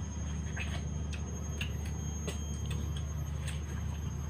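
Watermelon being bitten and chewed: faint, scattered short clicks and smacks, over a steady low background hum.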